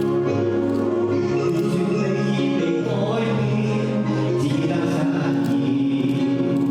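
Music: a slow song with held chords and a shifting melody line that is sung or played.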